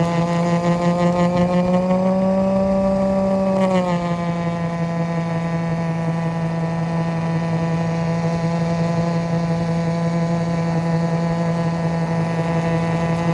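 Yarbo robotic snow blower's electric motors running with a steady whine. The pitch rises slightly, then drops sharply about four seconds in and stays level.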